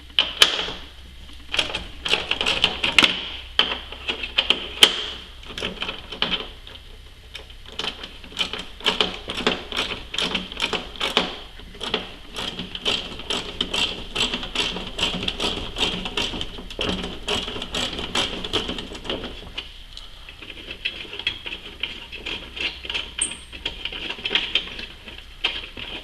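Socket ratchet turning a 10 mm socket, its pawl clicking in fast runs of strokes with short pauses, as a tail-light bolt is backed out.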